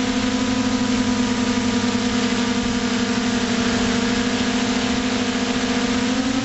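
Multirotor drone's electric motors and propellers humming steadily, heard from the onboard camera over a hiss of air rushing past. Near the end the pitch of the hum shifts slightly.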